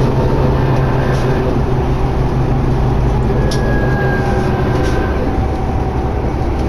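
Inside a 2011 New Flyer D60LFR articulated diesel bus underway: steady low engine drone and road noise, with a few faint rattles and clicks from the cabin.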